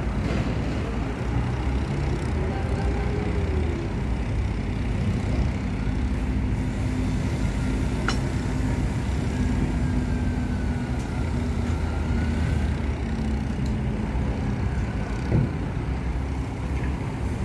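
Heavy crane engine running steadily with a low hum, while a shuttering panel is being lifted. A single sharp click comes about eight seconds in and a short knock near the end.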